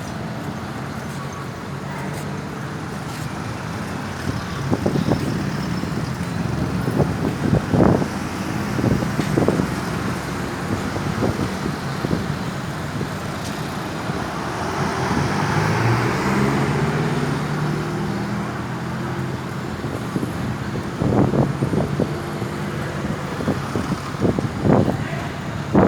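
Road traffic: vehicle engines running with road noise, and one vehicle passing and accelerating about halfway through, its engine pitch stepping up. No siren is heard.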